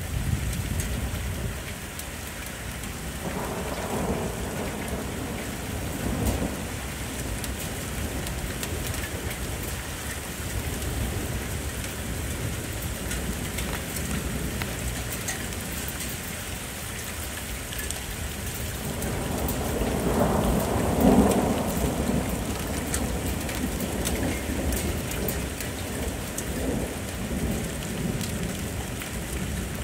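Steady rain falling in a thunderstorm, with low rolling thunder: a rumble a few seconds in and a longer, louder roll building about two-thirds of the way through.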